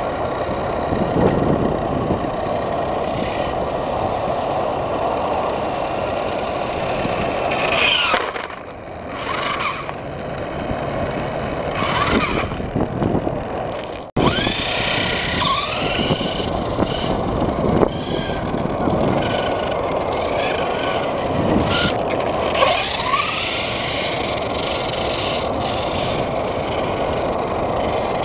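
RC motorcycle's motor whining as the bike speeds up and slows down, its pitch rising and falling several times over a steady rushing noise.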